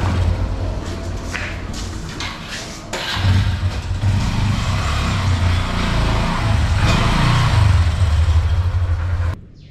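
Motorcycle engine running at low revs as the bike is ridden in off the street, getting louder about three seconds in, then stopping suddenly near the end.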